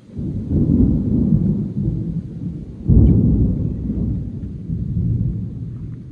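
Thunder rumbling low and loud, with a second, sharper clap about three seconds in that then rolls away.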